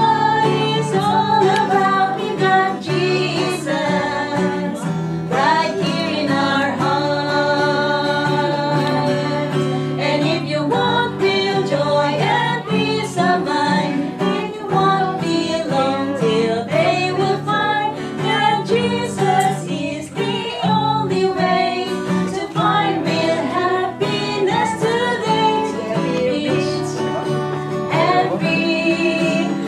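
Voices singing a Christian praise song together, with instrumental accompaniment.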